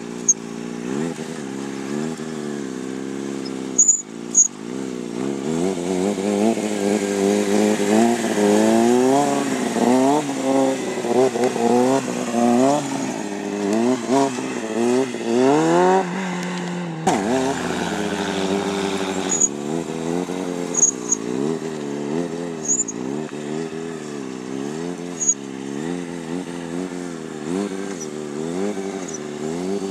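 Motorcycle engines revving up and down repeatedly as riders hold wheelies, the pitch climbing and dropping over and over. The sound changes abruptly at a few edits, most sharply about 17 seconds in.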